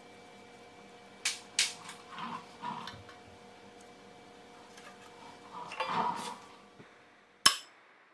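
Hands handling a rear brake rotor and caliper bracket: a couple of light metallic clicks, some rubbing and scraping of metal, then one sharp metallic knock near the end. A faint steady hum runs underneath.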